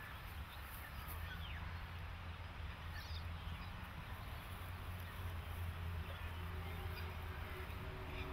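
Outdoor ambience: a steady low rumble with a few faint, brief bird-like chirps.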